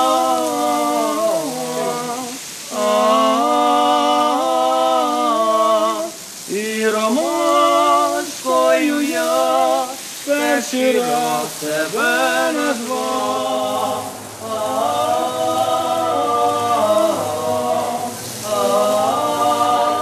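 Unaccompanied voices singing a slow Ukrainian song, with long held, wavering notes and short pauses between phrases.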